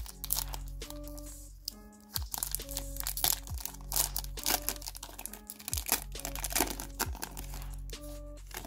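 Foil wrapper of a trading-card pack being torn open and crinkled by hand, a run of sharp crackles and rips over background music with steady notes and a regular beat.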